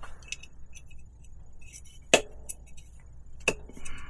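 Small metal tools and parts clinking and clicking as they are picked up and handled, with one sharp clack about halfway through.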